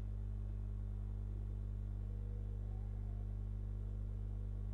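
Steady low electrical hum from the recording setup, with no other sound on top of it.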